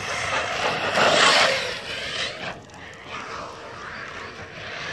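Electric Team Losi RC truck running on a 3-cell LiPo, driving past on dirt: motor whine and tyre noise swell to their loudest about a second in, then fade. A short knock comes about two and a half seconds in.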